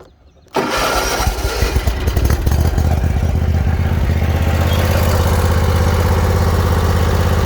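Hustler Raptor zero-turn mower's 21.5 hp Kawasaki V-twin engine starting about half a second in, running unevenly for a couple of seconds as it catches, then settling into a steady, smooth run.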